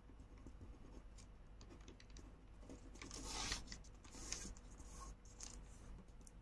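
Faint scratching of a ballpoint pen writing on paper, with a louder rustle of the paper sheet around the middle.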